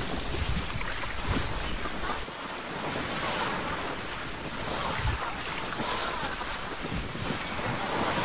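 Wind buffeting the microphone over the steady rush of water along the hull and wake of a small motorboat under way at sea.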